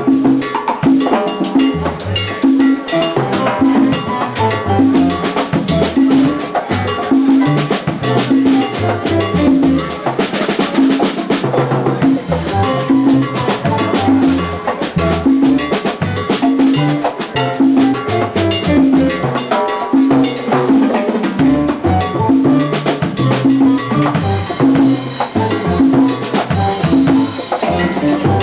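Live Latin jazz band playing a salsa groove: timbales with cymbal and block strokes drive the rhythm over an upright bass line and a repeating keyboard figure.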